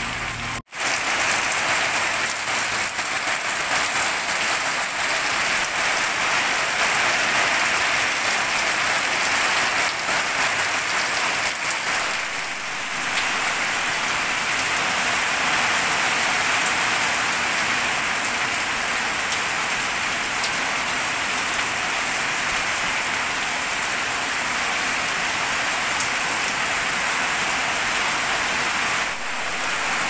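Heavy tropical rain pouring down steadily, a dense even hiss of drops, with short dips about twelve seconds in and near the end.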